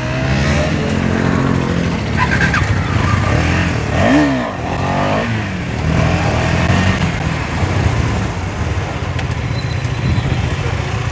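KTM Duke motorcycle engine running under way at riding speed. About four seconds in, its pitch rises and falls briefly.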